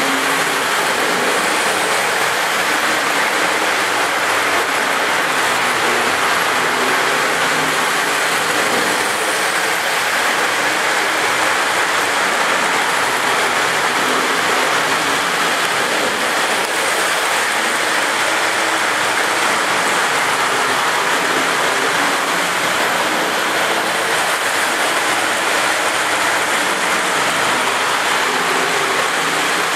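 Several model trains of different scales, O-scale Lionel sets among them, running at once on their track loops: a loud, steady rush of wheels rolling over rail joints and the hum of their motors, noisy enough to drown out talk.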